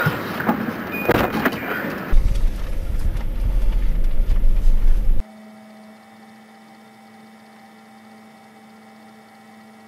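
A loud low rumble inside a police patrol car's cabin, heard from the driver's seat, after a couple of seconds of noise from the back seat. About five seconds in the rumble cuts off sharply, and a steady, much quieter electrical hum follows.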